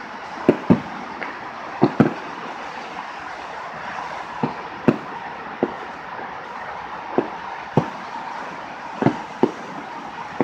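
Aerial fireworks bursting: about a dozen sharp bangs at uneven intervals, some in quick pairs, over a steady hiss.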